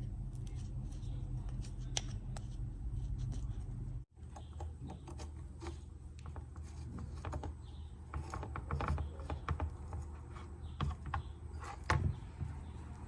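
Scattered small clicks, taps and scrapes of a bicycle rear derailleur and its small metal parts being handled, over a low steady hum that changes abruptly about four seconds in.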